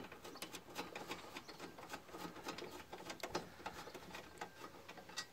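Faint, rapid, irregular clicking and scraping of a finger-loose nut being worked by hand on the threaded stud that holds a VW T4's front panel.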